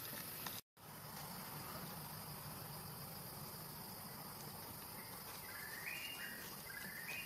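Forest ambience: a steady, high insect chorus of crickets or cicadas, which cuts out completely for a moment just under a second in. Near the end come two short high calls, each stepping between pitches.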